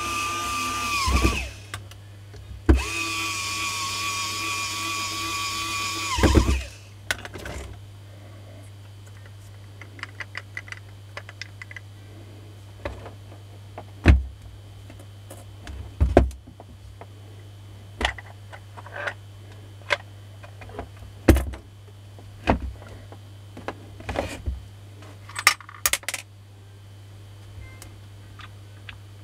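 Makita 9237CB polisher's electric motor running with a steady whine, spinning down about a second in, starting again about three seconds in and spinning down once more after about six seconds. After that come scattered clicks and knocks of the tool's parts and a screwdriver being handled.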